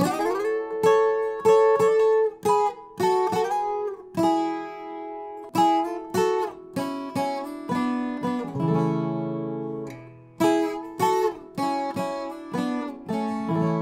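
Viola caipira played as a duet line in paired notes, fingered in thirds high on the neck with slides between positions: a run of plucked double-stops, each ringing on over the next.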